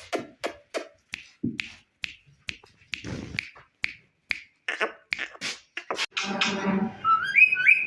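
Sharp clicks about three a second, then near the end a harsh call and short rising whistles from a ringneck parakeet.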